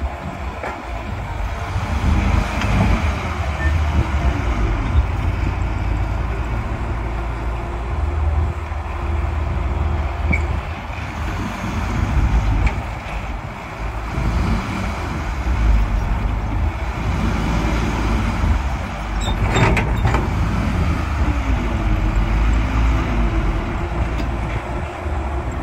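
Heavy diesel engines of a stuck dump truck and a working excavator running under load, the engine note rising and falling as they strain. A single sharp metallic clank about twenty seconds in.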